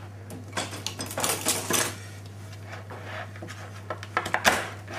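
A knife cutting a rack of lamb into three-bone portions on a cutting board: sharp knocks and clatter of the blade and meat on the board, in clusters about half a second, a second and a half, and four and a half seconds in.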